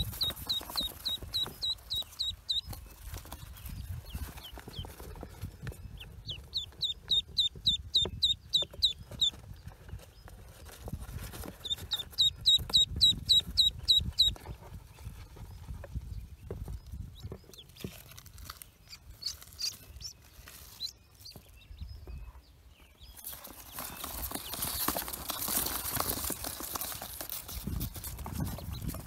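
Pekin ducklings peeping: rapid runs of high, evenly spaced cheeps, about four or five a second, in three bursts over the first half, then only a few scattered fainter cheeps. A rustling noise fills the last few seconds.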